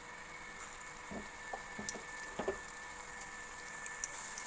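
Lumps of green-chickpea and gram-flour batter dropped into hot frying oil: a few short clicks and plops between about one and two and a half seconds in, over a faint steady sizzle.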